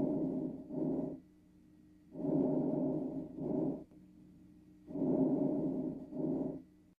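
Recorded breath sounds: slow, even breathing cycles, each a longer, rushing sound followed after a brief gap by a shorter one, heard about three times. The sound is muffled, with little above a mid pitch.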